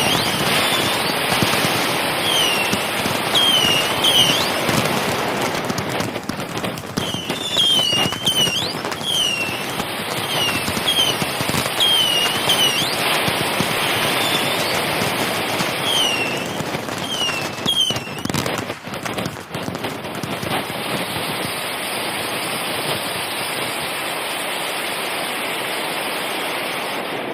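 Dense crackling of firecrackers and fireworks, with short high falling squeals recurring over it about once a second. After about twenty seconds the crackle thins into a steadier hiss.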